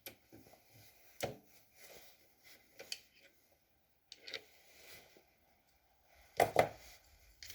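Scattered clicks and knocks of tools and metal parts being handled on a stopped lathe, with a louder double knock near the end.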